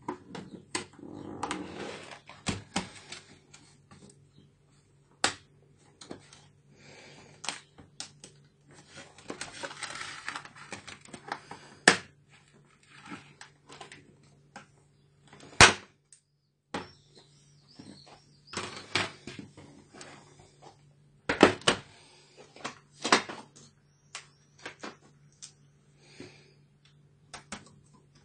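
Plastic clicks, snaps and scraping from the HP Mini 110-3100er netbook's case being handled, as its battery is unlatched and its plastic bottom cover is pried off by hand. Sharp clicks come irregularly throughout, with a couple of longer stretches of sliding, scraping plastic, over a faint low hum.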